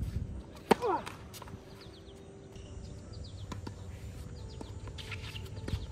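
Tennis serve: the racket strikes the ball with a sharp crack about a second in, followed by a short vocal sound, then several fainter knocks of the ball bouncing and being hit during the rally. Birds chirp faintly throughout.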